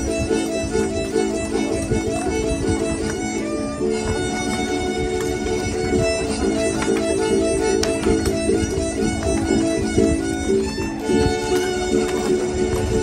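Traditional Mexican dance music played continuously, a fiddle carrying the melody over steady accompaniment.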